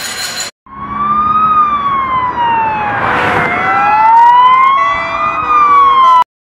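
A siren wailing, its pitch rising and falling slowly, with a burst of hiss about three seconds in. It starts after a brief gap and cuts off suddenly near the end.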